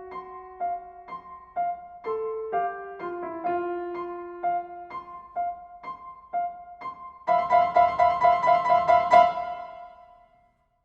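Solo piano: a high note struck steadily about twice a second, the ticking of the clock, over slower moving lower notes. About seven seconds in, a loud, rapid repeated chord high on the keyboard depicts the alarm ringing, stops after about two seconds and rings away.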